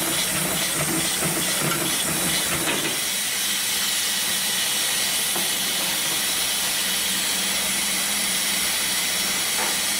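Cowboy CB7243 triple-feed heavy-duty sewing machine stitching a thick strap, a rapid run of stitches for about the first three seconds. Then the stitching stops, leaving a steady hiss and a low hum.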